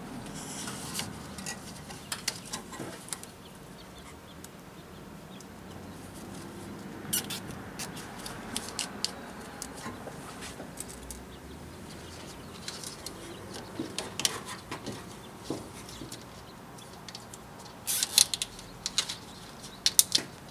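Scattered light clicks and rustling of hands handling corrugated plastic wire loom and zip ties against a truck's frame, with a quick cluster of sharper clicks near the end.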